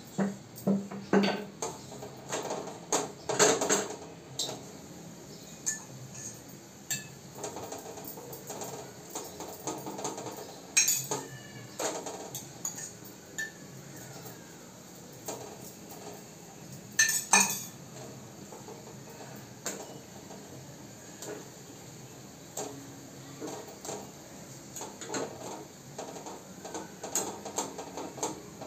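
Steel kitchen utensils clinking and clanking: a spoon against small steel bowls, and small pots and plates being set down, in irregular clinks with a few louder clanks scattered through.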